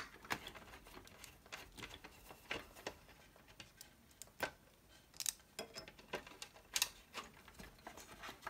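Scattered light clicks and ticks of a long screwdriver turning a screw in the Macintosh Plus chassis by the CRT, at an uneven pace, with sharper clicks about four and a half, five and a half and seven seconds in.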